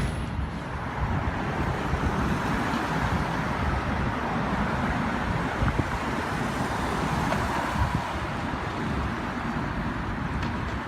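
A moving car's steady road and engine noise.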